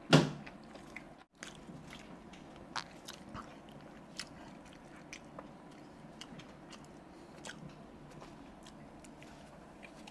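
Close-up mouth sounds of eating vada pav: soft biting, chewing and small crunchy clicks, with one loud sharp knock right at the start that fades quickly.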